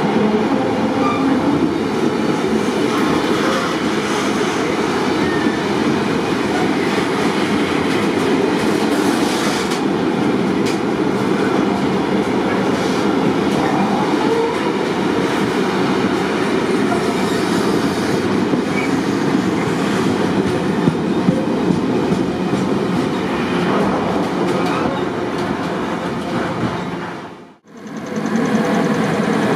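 Intermodal freight train rolling past close by: a steady rumble of wheels on rail and rattling wagons, with a clickety-clack of the wheels over rail joints. Near the end the sound cuts out briefly and comes back as another freight train passing.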